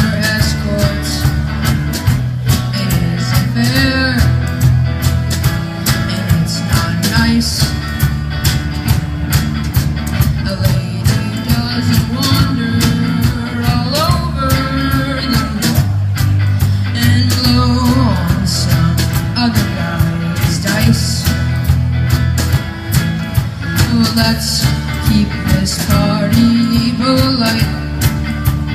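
Live band playing an instrumental stretch in a rock style: drum kit, electric bass and electric guitar.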